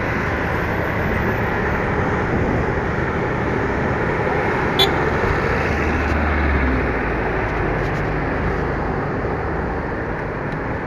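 Steady street traffic noise from cars on a busy road, with a low engine rumble swelling for about a second near the middle and a single sharp click just before it.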